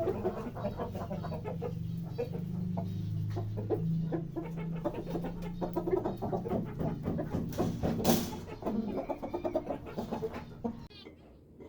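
Chickens clucking in a steady run of short calls, with a short sharp noise about eight seconds in.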